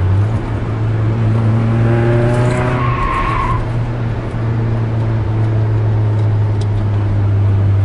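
Peugeot 306 S16's 2.0-litre four-cylinder engine running steadily under load at track speed, heard from inside the cabin, with a short rising squeal about two to three seconds in.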